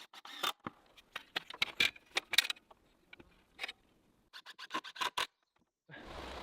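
Irregular sharp clicks, taps and scrapes, some in quick clusters. They stop briefly, and a steady hiss with a low hum begins near the end.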